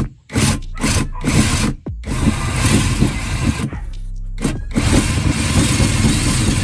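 A workshop tool working on metal in bursts: three short strokes of harsh noise, then two longer runs.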